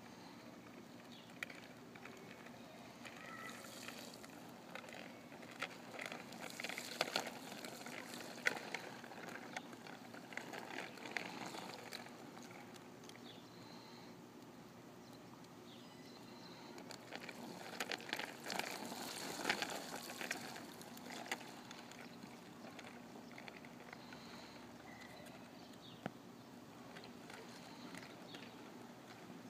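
A child's small bicycle rolling through shallow puddles on asphalt: faint tyre splashing and light rattling of the bike, in two spells, one about four to twelve seconds in and another about seventeen to twenty-one seconds in.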